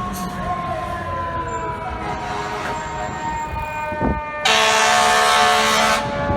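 Fire truck siren wailing with its pitch slowly falling, then a loud air horn blast lasting about a second and a half just past the middle, over the siren.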